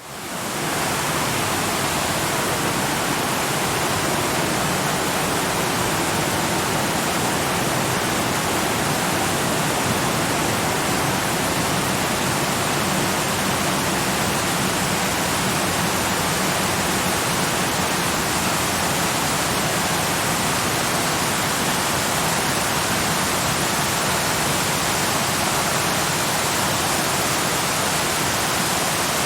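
Waterfall rushing in a steady, even roar of falling water, fading in over the first second and then holding unchanged.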